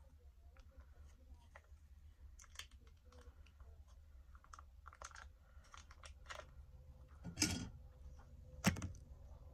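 Small scattered clicks and crinkles of handling and eating from MRE food pouches, with two louder handling noises about seven and a half and nine seconds in.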